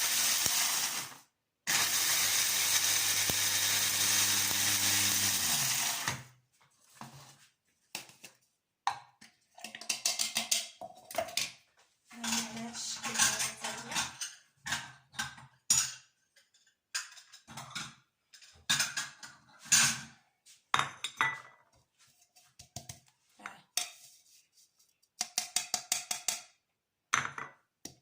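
Electric grinder running on dried red peppers in two pulses, a brief stop just over a second in, re-grinding a batch that came out coarse; the motor winds down about six seconds in. Afterwards, scattered clicks and clatter of dishes and utensils being handled.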